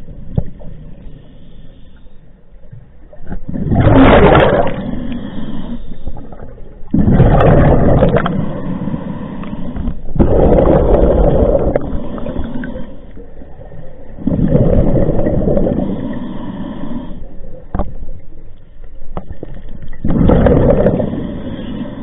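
Scuba diver breathing through a regulator underwater, heard close by: about five loud rushes of exhaled bubbles, a few seconds apart, each lasting one to three seconds, with quieter stretches between.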